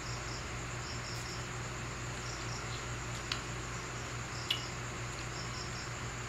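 Insect chirping in short high pulses, grouped two or three at a time and repeating about every second, over a steady low hum and hiss; two small clicks about three and four and a half seconds in.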